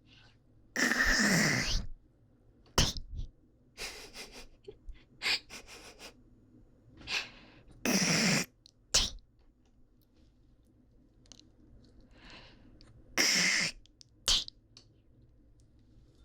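Close-mic mouth sounds: three times, a raspy, breathy burst lasting about a second, each followed within a second by a short smacking pop, with softer clicks in between.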